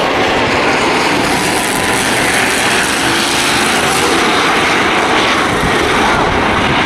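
Several stock car engines running hard around a short oval track, a loud steady engine noise with faint rising and falling pitches as cars pass.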